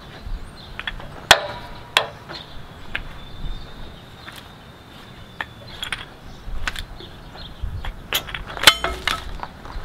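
Adjustable wrenches clinking against the metal fittings of an RV propane hose and regulator as the old hose is worked loose: a string of sharp metallic clicks and knocks, the loudest about a second in and two seconds in, with a quick rattle near the end.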